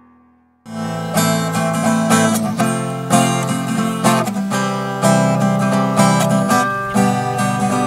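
Acoustic guitar strummed in a steady rhythm of chords, starting about half a second in.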